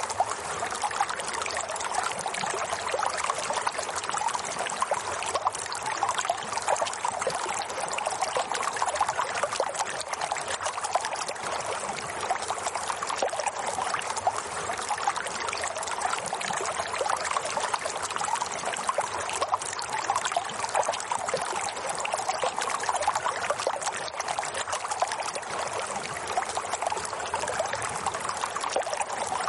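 Steady running water, like a small stream, with an even, unchanging rush.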